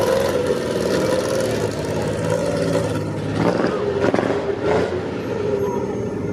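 A car engine running as a car drives off, with people talking around it between about three and five seconds in.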